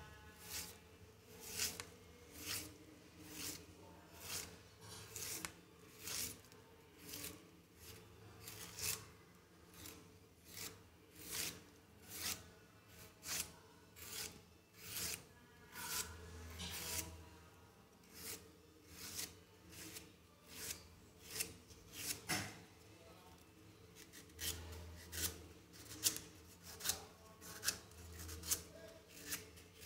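A kitchen knife shaving strips off a raw giant bamboo shoot held in the hand: short rasping scrapes, about one stroke a second.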